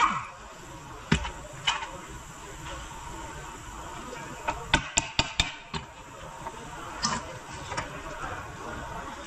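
Metal hand tools and parts clinking and knocking as they are handled, with a quick run of about five sharp clicks around the middle, over a steady low background noise.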